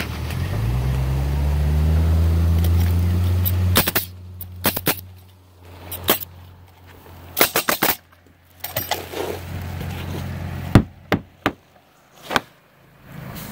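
Pneumatic coil roofing nailer firing nails through asphalt shingles: sharp pops in quick groups of two to four, about a dozen in all. For the first four seconds a low motor hum rises in pitch, holds, then cuts off abruptly.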